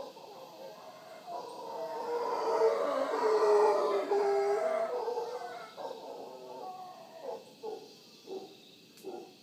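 Mantled howler monkeys howling: the calls swell about a second in, are loudest in the middle, then fade into a string of short grunts near the end.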